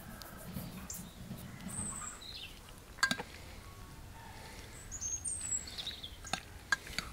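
A metal spoon mixing a mayonnaise-dressed salad in a bowl, with a few sharp clicks of the spoon against the bowl: the loudest about three seconds in, three more near the end. Small birds chirp in the background.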